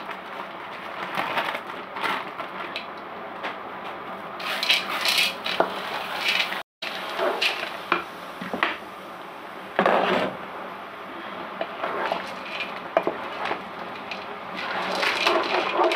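A spoon scraping and knocking against a cooking pot while minced chicken is stirred, in short irregular strokes.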